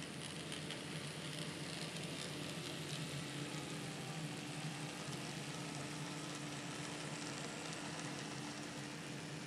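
N scale model freight train rolling past on its track: a steady hiss of small wheels running on rail, with a faint steady hum underneath.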